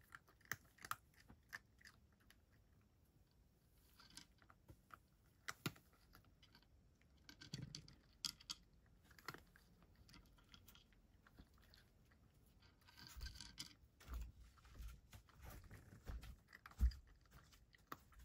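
A cat eating from a dish: faint, irregular chewing and crunching with small sharp clicks, and a few duller knocks in the last few seconds.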